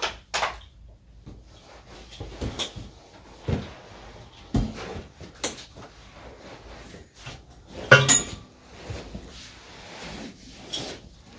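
Scattered, irregular knocks and clunks of objects being handled, the loudest about eight seconds in.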